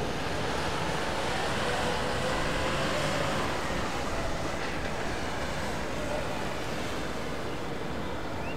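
Distant jet airliner engines at taxi power, the Ilyushin Il-96's four turbofans: a steady rumble with a faint, slightly wavering whine.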